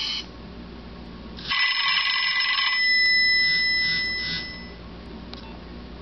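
Nokia 6102i mobile phone playing a ringtone through its small built-in speaker: a quick run of notes about a second and a half in, then a bell-like chord that rings on and fades away by about five seconds.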